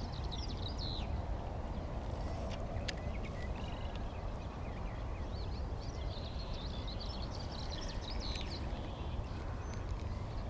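Birds chirping and singing over a steady low rumble of wind on the microphone, with one sharp click about three seconds in.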